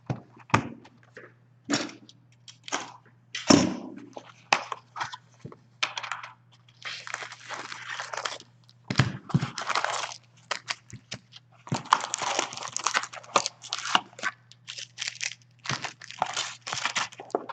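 Plastic shrink-wrap being torn off and crinkled while a cardboard hockey card box is opened and handled, in irregular spells of crinkling and tearing broken by sharp clicks.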